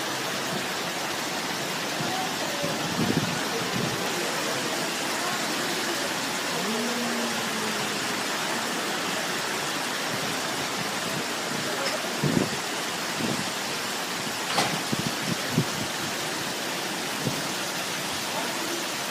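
Hail and heavy rain falling, a steady dense hiss, with a few louder knocks about twelve and fifteen seconds in.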